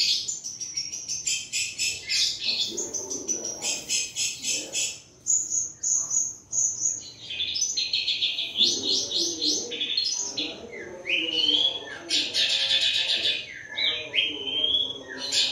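Birds chirping and twittering without a break, many quick high notes packed close together, with a few rising whistled notes in the second half.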